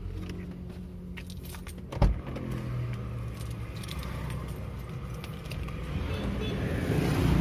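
A folding flip car key jangling and clicking as it is handled, with one sharp thump about two seconds in, over a steady low hum.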